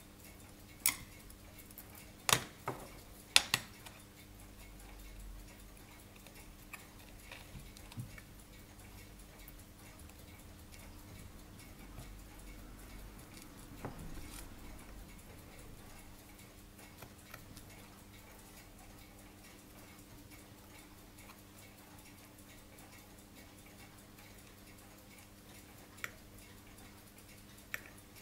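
Sharp metallic clicks of steel tweezers touching watch parts and the movement holder: a cluster of several in the first few seconds, a few scattered ones later, over a faint steady hum.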